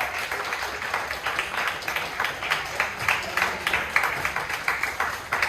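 Audience applauding, many hands clapping unevenly at the end of a Muay Thai bout.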